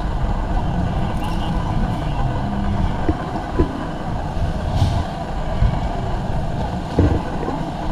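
Busy warehouse-store ambience: a steady low rumble of shopping trolleys rolling over the concrete floor, with crowd chatter in the background and a few short knocks.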